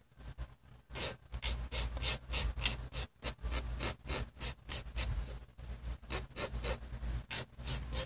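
Needle file scraping back and forth across the cut end of a wire S clasp to smooth it: quick, even strokes, several a second, starting about a second in.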